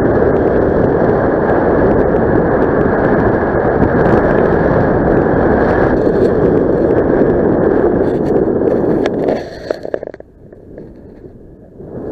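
Airflow buffeting a helmet camera's microphone in paraglider flight: a steady loud rush of wind that drops away abruptly about nine and a half seconds in and picks up again near the end.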